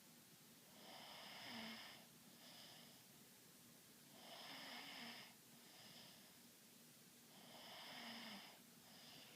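Faint snoring: three slow breath cycles about three and a half seconds apart, each a longer snore followed by a shorter one.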